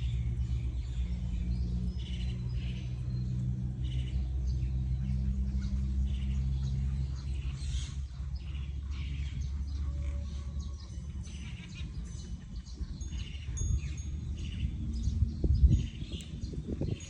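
Outdoor ambience with birds chirping repeatedly and a steady low rumble for the first half. A few thumps come near the end.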